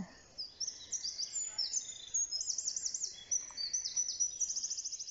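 Songbirds singing in the woods: high whistled notes and quick rapid trills, with a fast trill about halfway through and another near the end.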